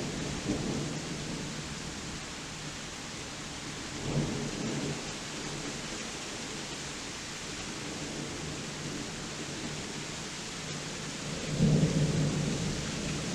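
Steady rain hissing through a thunderstorm, with rolling thunder rumbling in three swells: a faint one just after the start, another about four seconds in, and the loudest near the end.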